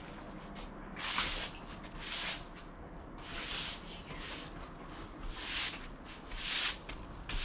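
Broom sweeping across bitumen roll roofing in short scraping strokes, about one a second.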